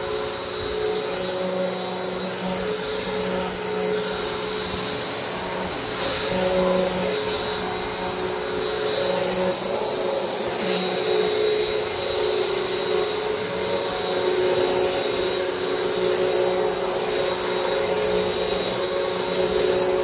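Royal Pro Series Multifloor upright vacuum cleaner running steadily with a constant motor whine while it is pushed over a rug. Its strong suction grips the carpet, making it hard to push.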